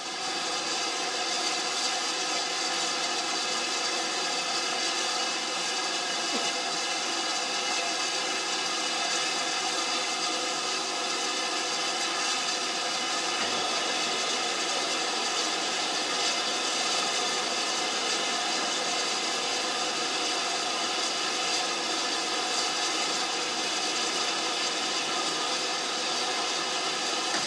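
Steady hiss of escaping steam from a standing BR Standard Class 5 4-6-0 steam locomotive, No. 73082, with a constant tone-laden rush that neither rises nor falls.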